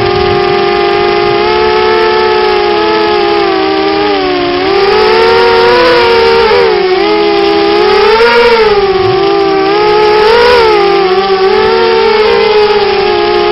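Coptergiest CGX 250 racing quadcopter's electric motors and propellers whining, several close tones at once; the pitch holds steady at first, then swings up and down repeatedly in the middle as the throttle is worked, and settles again near the end.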